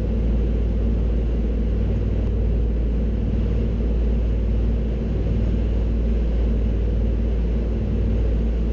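Steady drone of the Avro Anson's twin Armstrong Siddeley Cheetah radial engines, heard from inside the aircraft: a deep, even hum that holds one pitch throughout.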